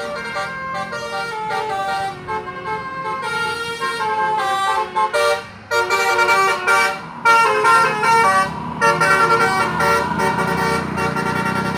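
Tour bus's basuri multi-tone musical air horn playing a quick tune of short stepped notes, loudest in the middle with a couple of brief breaks. Under it the bus's engine rumbles as the bus pulls through the bend past the microphone, growing stronger near the end.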